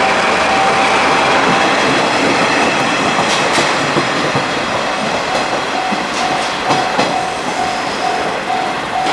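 A train made up of a DD51 diesel locomotive hauling a KiHa 120 railcar rolls past with a dense rail noise and scattered sharp wheel clicks over rail joints. A level-crossing warning bell rings through it, heard as a steady tone that from about halfway breaks into an even beat of about two strokes a second.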